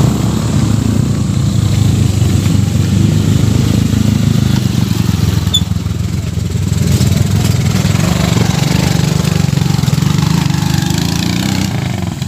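Motorcycle engine running steadily on the move, a low even drone that dips briefly about halfway through.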